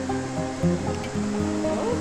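Background music with shifting sustained notes, over a steady rushing hiss.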